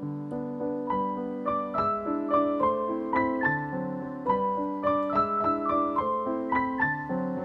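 Background piano music: a gentle melody of single notes, about two a second, over sustained lower notes.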